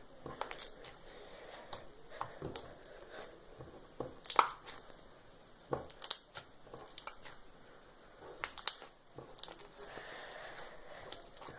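Slime being squished and pressed by hand, giving irregular crackling clicks and pops, the sharpest about four and six seconds in.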